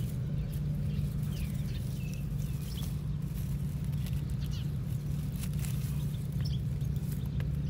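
Outdoor field ambience: a steady low hum with small birds chirping faintly now and then.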